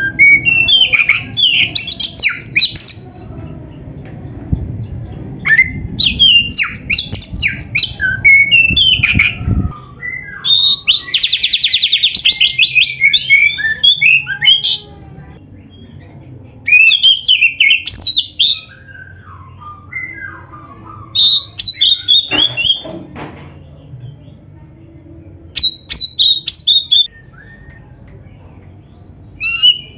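Oriental magpie-robin (kacer) singing loud, varied phrases of whistles and chattering notes in bursts a few seconds long with short pauses between them, including a fast, even trill about ten to thirteen seconds in.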